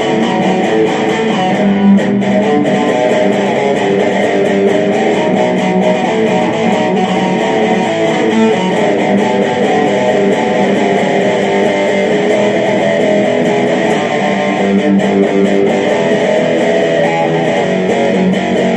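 Instrumental rock passage led by electric guitar, with no vocals. It plays steadily and loudly throughout.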